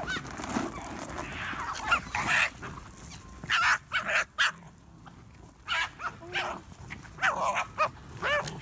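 A crowd of foxes, mostly red foxes, yipping and whining in short high calls that overlap, squabbling over food. The calls come in clusters, loudest a little after the middle and again near the end.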